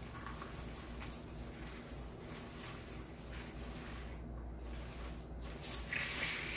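Wired ribbon and deco mesh rustling as hands thread and tuck the ribbon through a mesh swag, louder briefly near the end.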